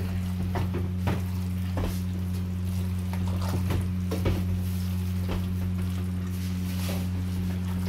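Wet squelching and squishing of a hand mixing raw duck pieces with onion and spice paste in a pot, in irregular strokes about once or twice a second, over a steady low hum.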